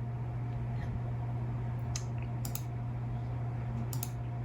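A few short, sharp clicks at a computer, some in quick pairs, over a steady low electrical hum.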